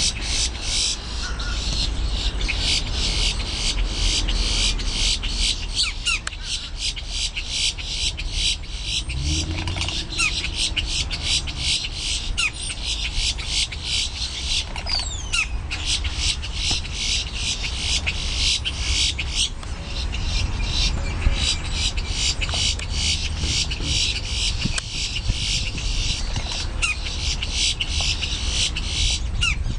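A steady, fast, high-pitched pulsing, several beats a second, with a few short, sharp boat-tailed grackle calls over it.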